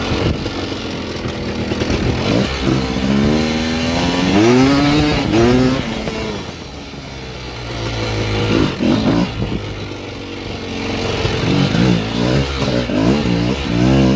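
Two-stroke 250 cc dirt bike engine revving under load. Its pitch rises in several long sweeps in the first half, then in short quick blips of the throttle near the end.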